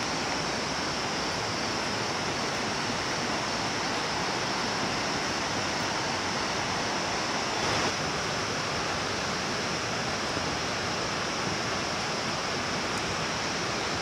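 Steady rushing of a nearby hillside stream, an even noise with no breaks.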